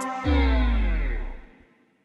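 A deep bass drop whose pitch slides steadily downward, starting just after a short click and fading out after about a second and a half.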